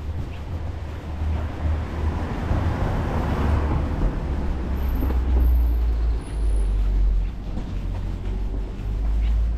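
A road vehicle passing on the street: its tyre and engine noise swells over a couple of seconds and fades away. Underneath is a steady low rumble.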